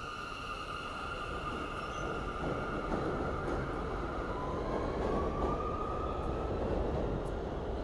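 New York City Subway J train departing and accelerating along elevated track: electric propulsion whine over steel wheels rumbling on the rails, with a second whine rising in pitch about four seconds in as the train picks up speed; the overall sound grows louder.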